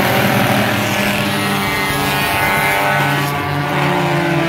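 Engines of several Bomber-class stock cars racing around a short oval, all running at once in a dense, steady drone whose pitches slide up and down as the cars pass.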